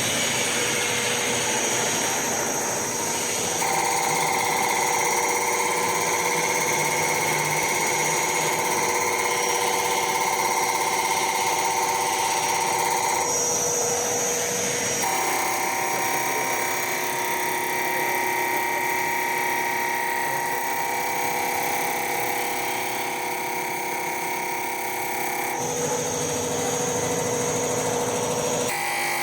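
CR304 common rail injector test bench running a four-injector test: a steady machine whine that jumps to a new pitch in sudden steps several times as the bench switches test settings.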